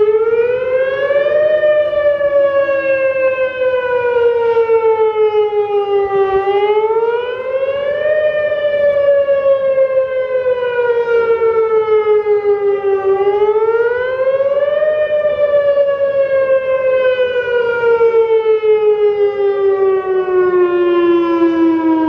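Whelen WPS 2810 electronic outdoor warning siren sounding a wail for a system test. The pitch rises quickly over about a second and a half, then falls slowly for several seconds, and this happens three times.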